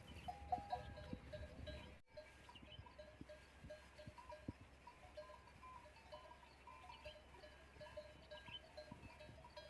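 Camel bells tinkling faintly and irregularly as resting camels shift, a little louder in the first two seconds. The sound cuts out for an instant about two seconds in.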